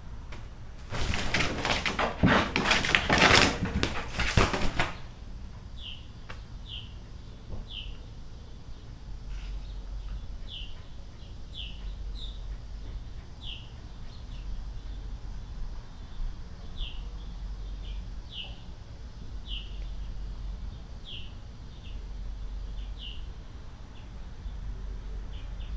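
Plastic sheeting crinkling and crackling loudly for about four seconds as a dog pushes against it. Then a bird chirps repeatedly, short falling chirps about once a second.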